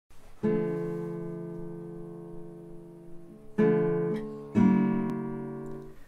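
Acoustic guitar playing slow, full chords: one long ringing chord, then two more about a second apart near the end, each dying away gradually.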